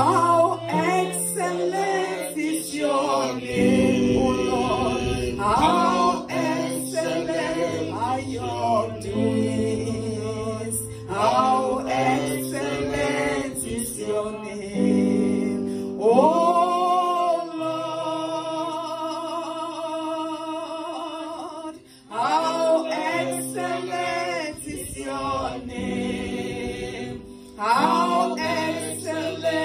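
A woman singing a gospel worship song into a handheld microphone, in phrases with a few long held notes, over an instrumental backing of sustained low notes.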